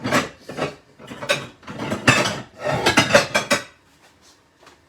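Kitchen utensils and dishes clattering and scraping, a run of rattling strokes that stops about three and a half seconds in.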